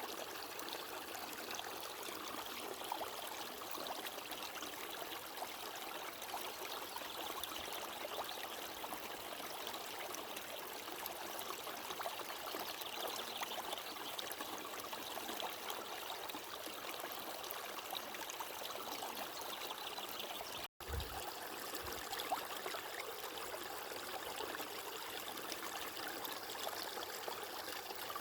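Running water flowing and trickling steadily, like a small stream. About twenty seconds in it cuts out for an instant, then resumes with a brief low thump.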